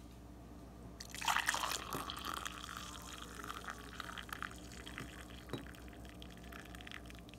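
Tamarind juice poured from a pot into a glass tumbler. It starts about a second in with a splashing gush, then settles into a steadier trickle as the glass fills.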